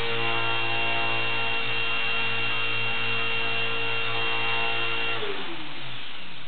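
Micro RC helicopter's electric motor and main rotor running with a steady whine, then switched off about five seconds in, the pitch falling as the rotor spins down.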